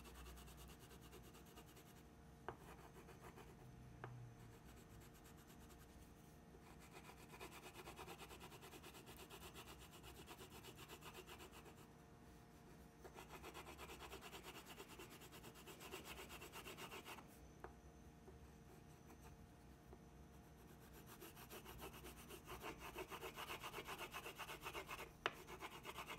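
Wax crayon scribbling back and forth on paper, faint, in several stretches of quick shading strokes with short pauses between them.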